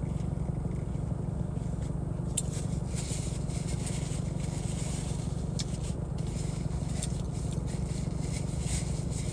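Steady low rumble inside a parked, idling car's cabin, which the owner takes for the air conditioning running. Scattered small crackles and clicks ride over it from about two seconds in.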